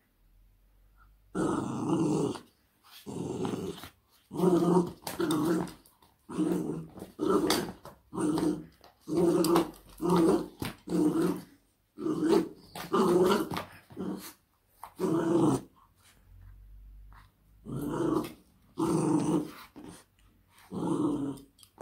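Jack Russell Terrier puppy play-growling in short repeated bursts, about one a second, while tugging and shaking a slipper and rope toy.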